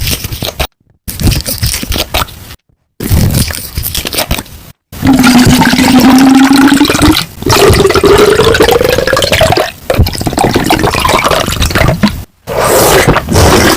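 Gatorade Zero sports drink poured from its bottle into a glass, the gurgling pour rising steadily in pitch as the glass fills. It comes after a few short bursts of bottle handling and cap noise.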